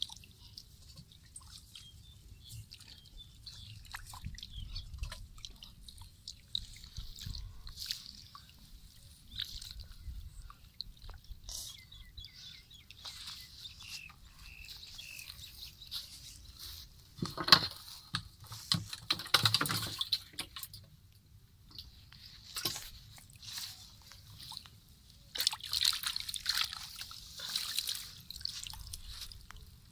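Muddy water sloshing, splashing and dripping in a small dug hole as hands and a wire-mesh basket scoop through it. There is a bout of louder splashing a little past halfway and another near the end.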